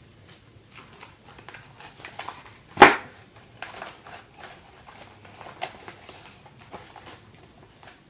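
Small handling noises, light scattered clicks and taps, with one sharp knock about three seconds in.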